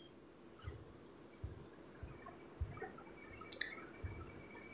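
A cricket chirping steadily, a high trill pulsing several times a second, with a few faint low knocks.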